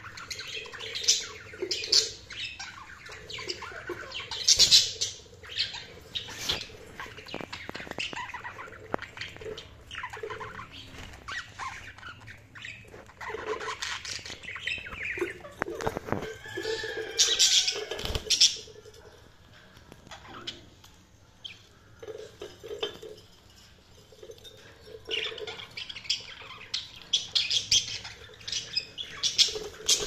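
Pet budgerigars chirping and squawking in many short, high calls, with a quieter stretch about two-thirds of the way through and wings flapping near the end.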